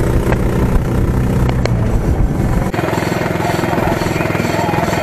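Engine of a small tractor towing a buggy train, running steadily with a chugging beat. A little past halfway the sound changes abruptly to a faster, even chugging.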